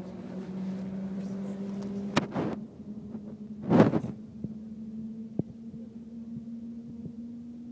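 Steady hum of the Shanghai Maglev train heard inside the passenger cabin, slowly rising in pitch as the train gathers speed. A sharp click comes a little after two seconds in, and a brief, loud noise burst comes about four seconds in.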